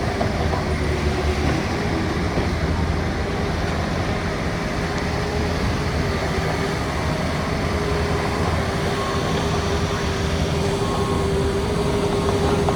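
Heavy construction machinery running steadily: a constant low rumble with an unbroken whine, and a fainter higher whine coming and going in the second half.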